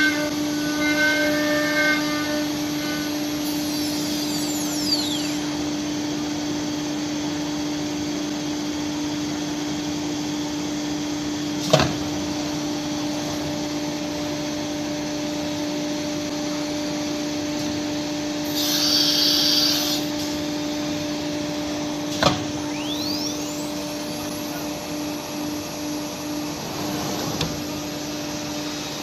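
CNC router running, with a steady machine hum over a noise like a vacuum. Two sharp clacks come about twelve and twenty-two seconds in, and a burst of air hiss comes about nineteen seconds in.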